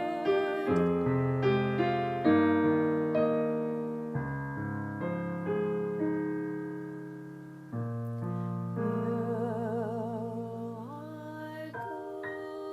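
Slow piano or electric-piano music: chords struck every second or so and left to fade, with a wavering held tone joining about two-thirds of the way through.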